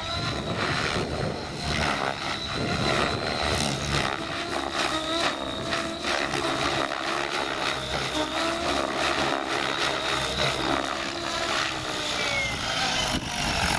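Radio-controlled model helicopter flying aerobatics, its rotors and motor running with a pitch that rises and falls as it manoeuvres, over a thin steady high whine.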